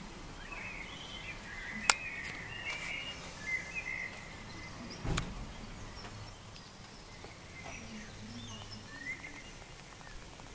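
Outdoor evening background with scattered short bird chirps, and two sharp clicks, about two seconds in and again about five seconds in.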